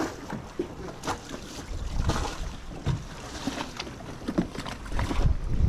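Wind and water noise aboard a boat, with a few scattered knocks and clatter, and a low wind rumble on the microphone growing near the end.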